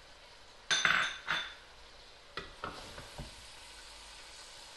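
A wooden spoon stirs chopped tomatoes, onions and green chillies frying in a metal pot. There are loud scraping strokes about a second in, then a few light knocks of the spoon against the pot, over a faint steady sizzle.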